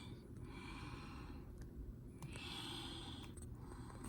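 A person breathing close to the microphone: two long, hissy breaths, about a second each.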